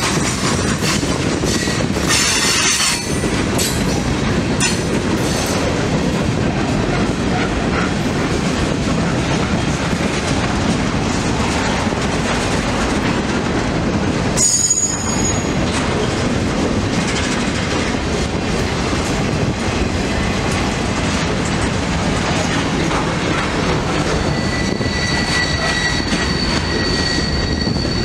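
Freight train cars rolling past close by with a steady rumble of wheels on rail. Short high metallic squeals come about two seconds in and again around the middle, and a steady squeal sets in near the end.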